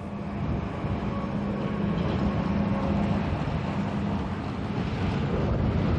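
Transrapid maglev train gliding along its elevated guideway: a steady rushing noise with a low hum, slowly growing louder. The hum drops out about four seconds in.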